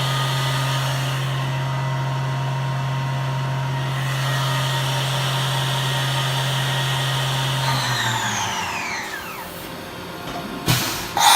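Yama Seiki VMB-1020 CNC vertical machining center running its program with a steady hum and whine. About eight seconds in the hum stops and a whine falls in pitch as the machine winds down. A sharp click follows, and a loud hiss begins near the end.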